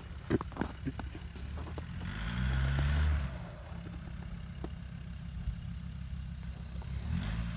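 Off-road 4x4's engine running under load, revving up for about a second around two seconds in, dropping back, then rising again near the end. A few sharp knocks and clatters in the first second.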